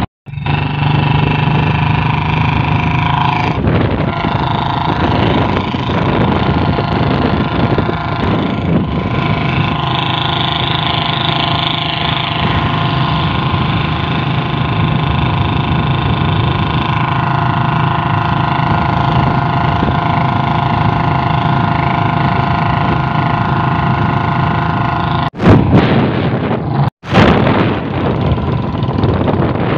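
Motorcycle engine running at a steady cruising speed, with wind noise on the microphone. The sound drops out briefly twice near the end.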